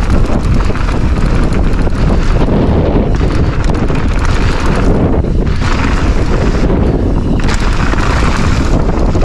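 Loud, constant wind buffeting and rumble on the camera microphone of a mountain bike riding a dirt bike-park trail, with tyre and bike rattle mixed in. The high hiss drops out briefly a few times.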